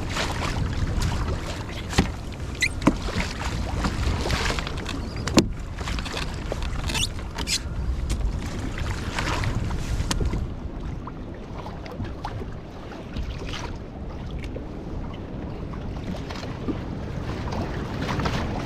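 Wind buffeting the microphone over water sloshing and slapping against a small boat's hull in choppy swell. A few sharp knocks come in the first six seconds, with splashy bursts between them.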